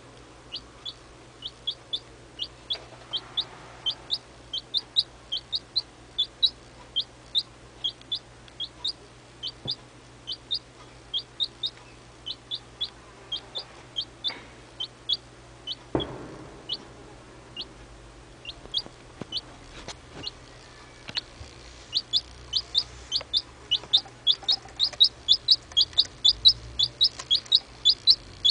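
A chicken chick a few weeks old peeping over and over: short, high peeps that each fall in pitch, about two a second, coming faster and louder in the last few seconds. A single sharp knock sounds about halfway through.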